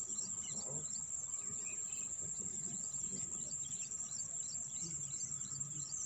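Insects trilling in one high, unbroken, steady note, with small birds chirping repeatedly over it.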